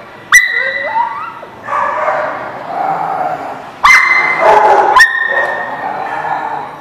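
Dogs play-fighting: rough play growling broken by three sudden high-pitched squeals and a short rising whine.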